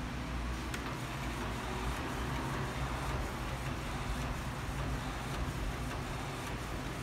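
Epson L1300 inkjet printer printing: a steady mechanical whir of the print head carriage and paper feed, with faint repeated ticks, as the sticker sheet advances out of the printer.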